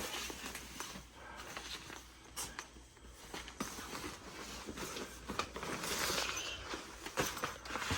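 Handling noises of an insulated fridge cover being fitted: fabric rustling and scattered light clicks and knocks, over a faint steady low hum.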